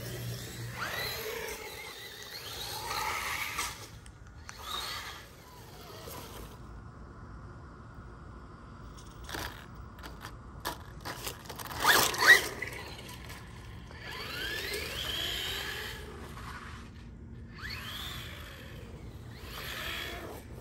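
Small electric RC monster truck driving: its motor whine rising and falling in pitch as it speeds up and slows, with tyres scraping over concrete and grass. A louder burst of scraping and crunching comes about twelve seconds in.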